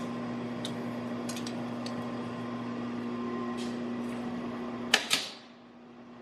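Steady hum of a Little Giant power hammer's electric motor running between blows, with a few faint clicks. About five seconds in come two sharp metallic knocks close together, and the hum then drops away.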